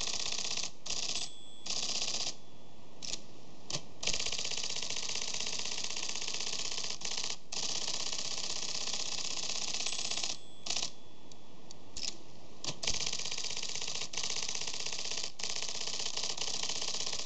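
IBM 1130 Selectric I/O writer (console printer) printing, its typeball striking the paper in a fast, continuous clatter with a few short pauses. The solenoids are being actuated by hand for a printing test.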